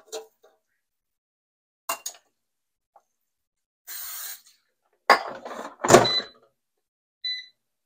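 Metal tongs clicking against fish bites and an air fryer basket, then a short hiss of cooking-oil spray. The basket slides back into a Cosori air fryer with loud clunks, and the fryer gives a short beep near the end.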